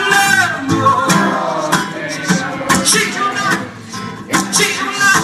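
Live acoustic guitar strumming, with a man's voice singing held notes over it. The strumming thins out briefly near four seconds in, then comes back in full.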